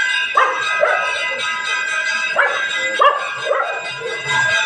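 Temple bells ringing continuously, their tones hanging on, with several short yelping calls over them.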